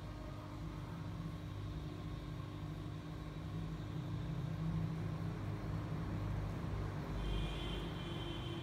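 A steady low mechanical rumble, like engine or traffic noise, with a few short high chirps near the end.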